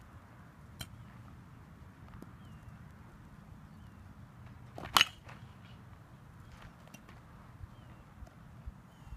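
A baseball bat striking a ball once, a sharp crack about five seconds in.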